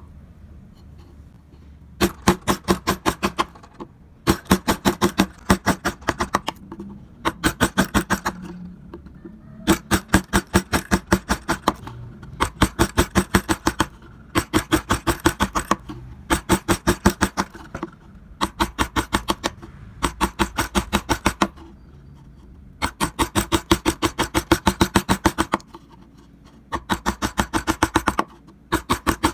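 Mallet tapping a carving chisel into wood, in quick runs of about eight strikes a second. Each run lasts a second or two, with short pauses between, about a dozen runs in all.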